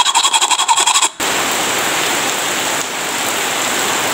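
Steady rain falling and splashing on wet paving stones. About the first second holds a brief, rapid pulsing sound that cuts off before the rain begins.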